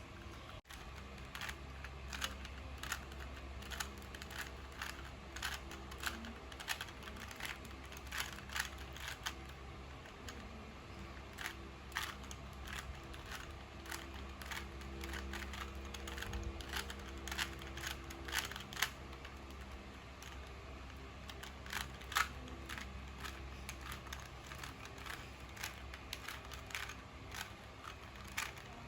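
A 3x3 Rubik's cube being twisted by hand: sharp plastic clicks in quick, uneven runs as the layers are turned through an algorithm, over a low steady hum.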